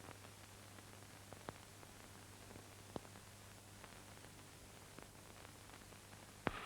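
Near silence: a faint steady low hum with a few scattered soft clicks, and a sharper click near the end.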